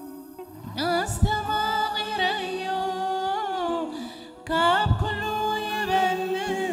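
Woman singing a slow gospel song into a microphone, long held notes that waver and glide. Her phrases break off briefly near the start and again about four seconds in, and each new phrase starts with a low thump on the microphone.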